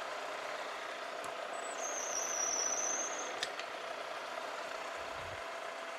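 Machine spindle running steadily as a 1/4-inch twist drill cuts deep into steel under power feed. A high squeal from the bit in the cut starts a little under two seconds in and lasts about a second and a half, followed by a sharp click.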